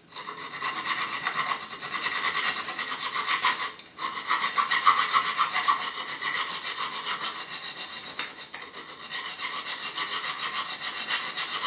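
Metal hand file rasping back and forth along the edge of a 4 mm aluminium plate in quick, steady strokes, with a short break about four seconds in. The edge is being filed down because the plate still fits too tightly.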